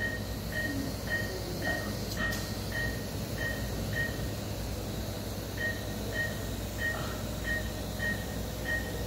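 Patient monitor's short pulse beep repeating about twice a second, pausing briefly near the middle, over a steady low hum of endoscopy-room equipment.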